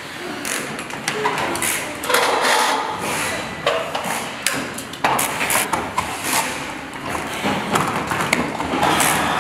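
Assembly-line clatter in a large hall: irregular knocks and clicks of small plastic-and-metal fan-motor parts being handled, with a few short whirs of electric screwdrivers.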